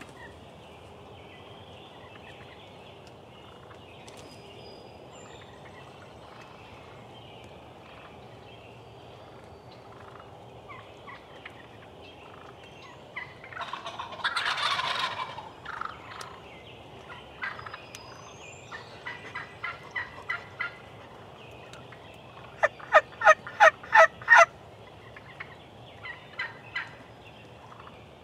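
Wild turkeys calling: a rattling gobble of about a second, roughly halfway through, then runs of short yelping notes. The loudest is a quick series of about seven notes near the end.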